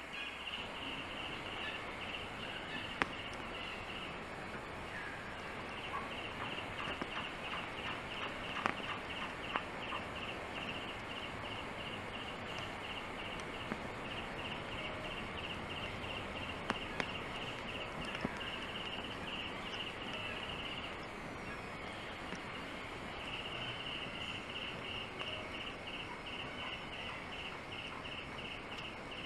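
High-pitched chirping from an animal, a rapid even pulse of about four a second that comes in runs several seconds long and pauses between them, with a few sharp clicks.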